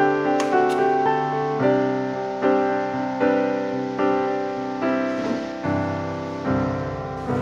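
Background piano music: a gentle melody of single notes over a steady, even pulse.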